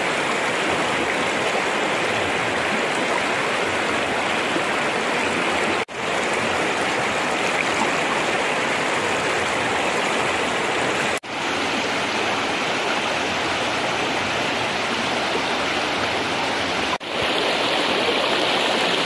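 Shallow river rushing and splashing over rocks in a steady rush of water, broken three times by a momentary dropout where the shot changes.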